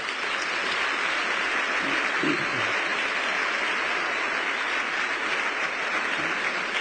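An audience applauding steadily, dense clapping with no letting up.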